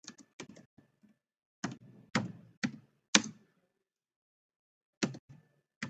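Computer keyboard keystrokes, typed one at a time: a quick run of taps, then single keys about half a second apart, a pause of nearly two seconds, and a few more taps near the end.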